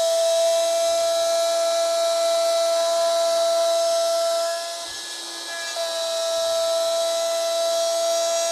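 DeWalt plunge router running with a steady high whine as its bit routes the J-slot into the wooden yarn bowl held in the jig. The whine drops away for about a second near the middle, then returns.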